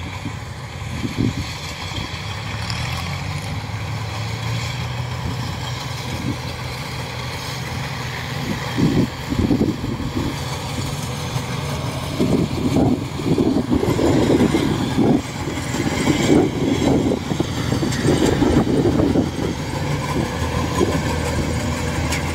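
Kubota DC-105X combine harvester's diesel engine running steadily as it cuts rice, with uneven louder surges in the second half.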